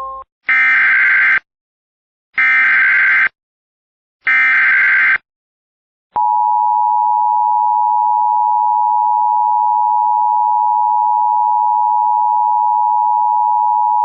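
Emergency Alert System alert opening: three short bursts of SAME digital header data about two seconds apart, then the steady two-tone attention signal starting about six seconds in. It heralds a National Weather Service flash flood warning.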